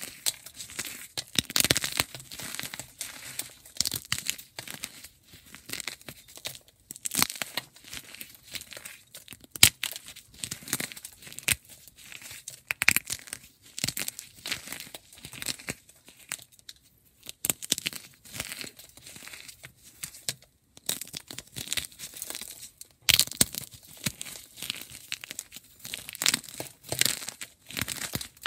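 Gym chalk being shaved and crumbled: irregular dry crunching and crackling strokes that come thick and fast, with a couple of brief pauses around the middle.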